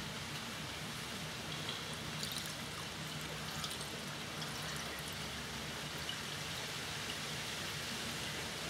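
Diesel trickling steadily from a small plastic bottle into the oil fill hole of a 2 hp Briggs & Stratton crankcase, a little poured in to flush out the old, fuel-thinned oil.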